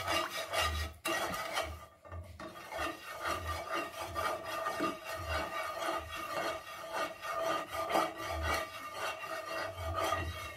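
Plastic spatula scraping round the bottom of a stone-coated nonstick pan, stirring a little water and sugar, in repeated rasping strokes.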